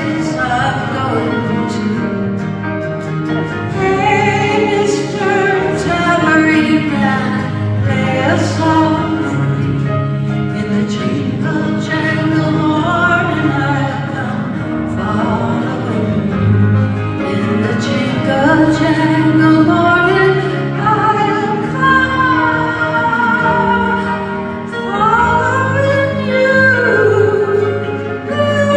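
A woman singing a folk song live into a microphone, accompanying herself on a strummed twelve-string acoustic guitar.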